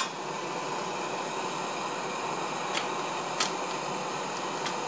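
DIY brass case annealer running with its torch burning under the drum: a steady rushing hiss, broken by three sharp clinks of brass rifle cases dropping into the catch tray, the last near the end.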